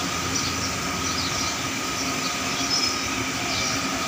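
Steady mechanical hum with a rushing noise underneath, and a few faint short high squeaks now and then.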